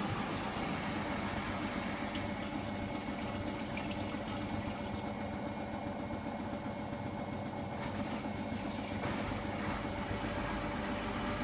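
Hoover washing machine in its 800 rpm spin on the Refresh cycle: a steady motor hum with drum vibration, pretty quiet.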